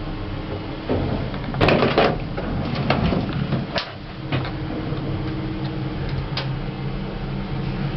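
Single-speed express service lift in operation: a steady hum, a burst of clatter about one and a half seconds in, then several sharp mechanical clicks.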